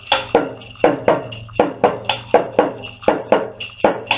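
Hand-shaken rattle played in a steady rhythm, about four strokes a second with some strokes accented.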